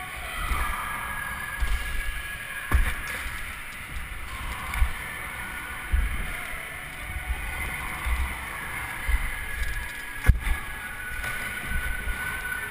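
Wind buffeting an action camera's microphone as a BMX is ridden around indoor skatepark ramps. Several sharp knocks come at irregular gaps from the wheels striking and landing on the ramps, the loudest near the end.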